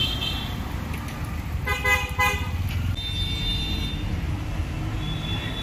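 City street traffic with a steady low rumble of engines, and a vehicle horn honking in a short burst about two seconds in.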